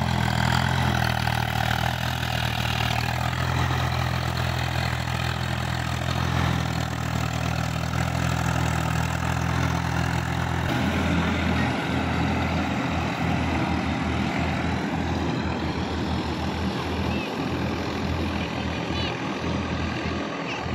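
Swaraj 855 FE tractor's three-cylinder diesel engine running steadily as it works a flooded paddy field. About ten seconds in, the sound turns fainter and more distant, leaving an uneven low rumble, with a few faint bird chirps near the end.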